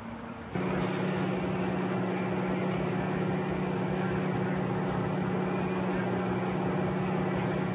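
A heavy engine running at a steady speed: a constant hum over a rushing noise. It comes in suddenly about half a second in and stops abruptly at the end.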